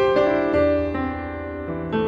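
Background piano music, notes and chords struck and left to ring.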